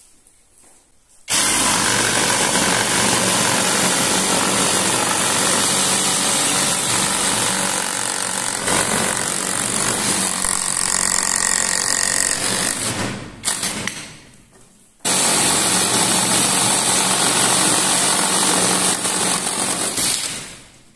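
Cordless power tool running loud in two long stretches, about eleven seconds and then about five, with a brief blip between; each stretch starts and stops abruptly.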